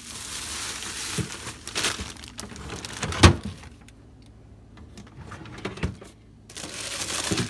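Rustling and handling of vegetables in plastic bags in a fridge vegetable drawer, with one sharp knock about three seconds in and a few small clicks in a quieter stretch after it.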